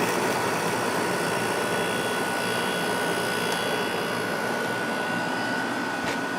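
2002 Whirlpool 5,000 BTU window air conditioner running on low cool: a steady rush of fan airflow, with a thin steady whine that sets in about half a second in and a faint click near the end.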